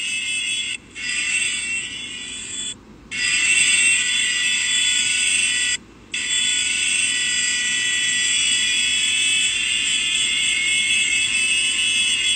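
Shrill, steady electronic buzzing tone with several high pitches held at once. It cuts out briefly three times and is louder after about three seconds.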